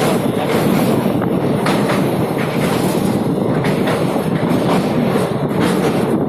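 Train wheels running on the rails, heard from inside a moving train: a loud steady rumble with irregular clacks from the rail joints.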